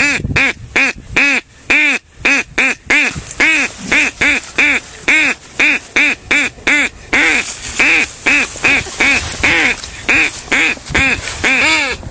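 A duck call blown by a child, sounding a long run of short quacks, about three a second, each rising and then falling in pitch.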